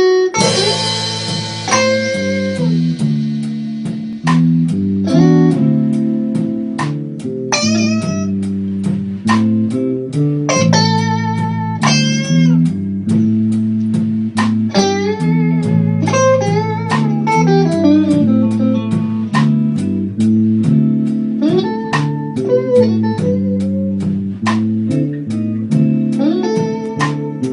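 A band playing a slow blues live. Two electric guitars play bending lead lines over a bass line, and the drums strike a steady slow beat about twice a second.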